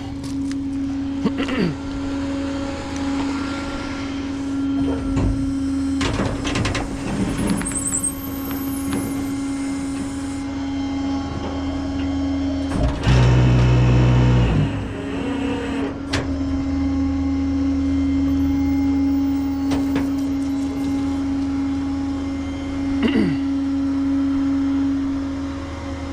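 A vehicle engine running steadily, with scattered clicks and knocks over it and a louder burst of about a second and a half about halfway through.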